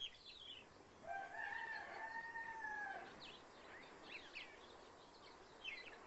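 A rooster crowing once, a long call of about two seconds that rises and then gently falls, with small birds chirping around it.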